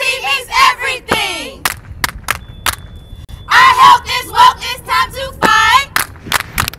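A group of women's voices chanting short rhythmic lines together, punctuated by sharp hand claps. About a second in, a shout glides down in pitch.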